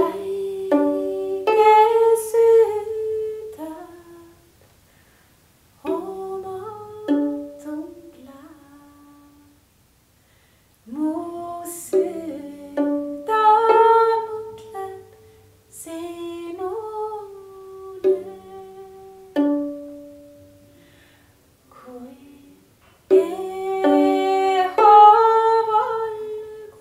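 A woman singing a slow folk song unaccompanied by other voices, in several phrases separated by short pauses, accompanying herself on a small stringed folk instrument.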